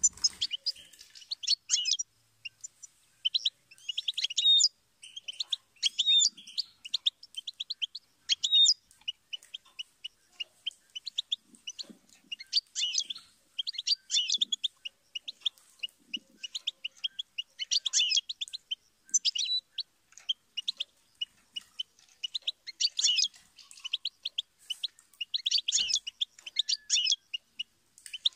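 European goldfinch song: quick, liquid twittering phrases of rapid chirps and trills, in bursts of one to two seconds with short pauses between.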